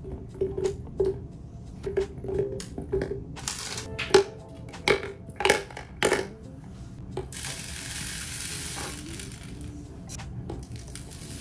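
Lumps of frozen spinach dropped one by one into an empty plastic blender bottle, knocking against the plastic several times. Then rolled oats are poured in, a steady rustling hiss lasting about three seconds.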